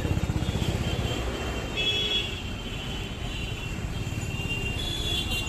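Road traffic: a motor vehicle's engine running close by with a rapid low throb, and short high horn toots about two seconds in and again near the end.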